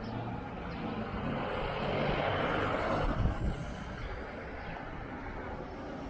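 A motor vehicle passing by on the street, its noise swelling to a peak about three seconds in and then dropping away.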